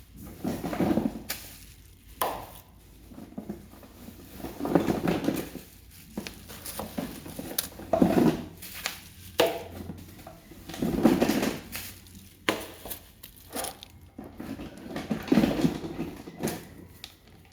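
Package being unwrapped by hand: repeated rustling and crinkling of packaging in swells every few seconds, with scattered knocks and clicks as items are handled.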